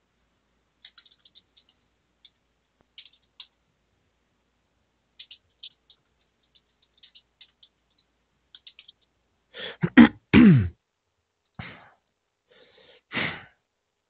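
Faint scattered clicks, then about ten seconds in a person sneezes loudly: a short intake, a sharp burst and a falling voiced tail. Two shorter, quieter breathy bursts follow.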